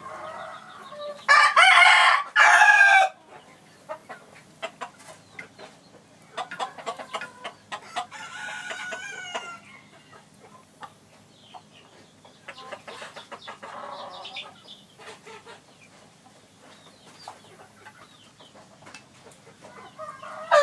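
Roosters crowing: a loud two-part crow about a second in, then fainter crows and clucks further on, with scattered light clicks between, and another loud crow starting at the very end.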